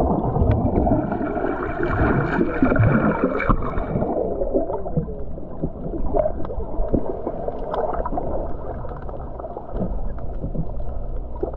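Muffled water gurgling and sloshing, picked up by a camera under water, with scattered sharp clicks. It is busier and brighter for the first four seconds, then settles into a lower, steadier rumble.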